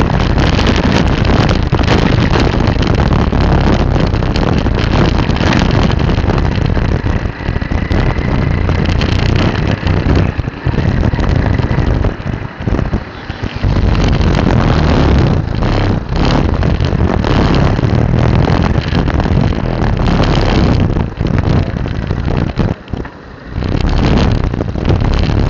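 Wind buffeting an action camera's microphone on a moving vehicle, a loud steady rush over engine and road noise, briefly dropping away twice: once around the middle and again near the end.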